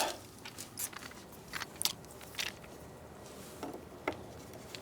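Scattered light clicks and taps, about ten, from small door-lock hardware being handled and fitted by hand.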